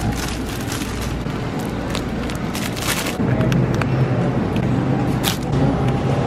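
Supermarket ambience: a steady low hum that grows stronger about three seconds in, with scattered short clicks and rustles from a handheld camera moving past the shelves.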